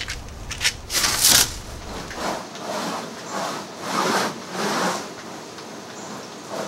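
Rubbing and scraping handling noise from vinyl sheet flooring being worked into place over sticky adhesive: a few sharp clicks at first, then a series of rustling swells.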